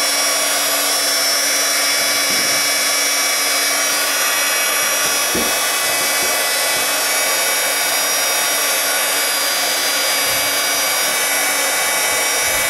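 Embossing heat gun running steadily: an even rush of blown air with a steady high hum from its small fan.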